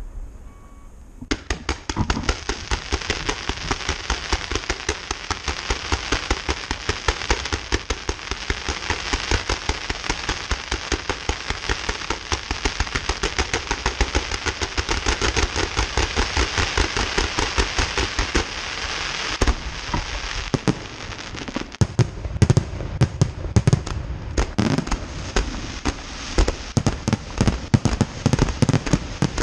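Fireworks display: after a brief lull, a rapid, dense series of bangs and crackles starts about a second in and keeps going. In the last third the bangs become louder and more widely spaced, with more low-end.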